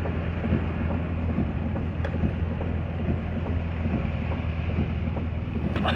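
Vehicle engine and road noise heard from inside the cabin while driving: a steady low hum under a constant hiss.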